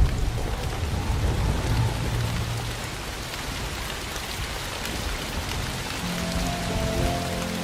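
Steady rain falling, while a low thunder rumble dies away over the first few seconds. Soft held music notes come in about six seconds in.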